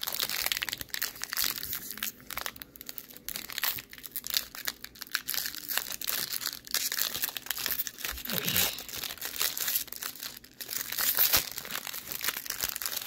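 Foil wrapper of a Topps Gallery baseball card pack being torn open and crumpled in the hands: a dense, irregular crinkling crackle throughout.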